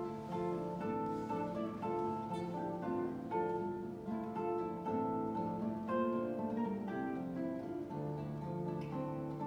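Two classical guitars playing a duet: a flowing run of plucked notes over sustained bass notes.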